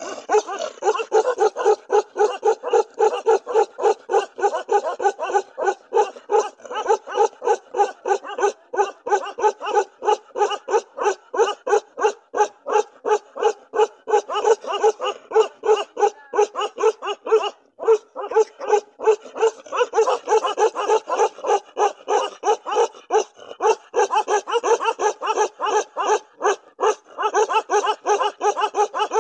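Ladakhi-Kashmiri mountain dogs barking nonstop in a fast, even rhythm, about three barks a second, with one short break about 17 seconds in.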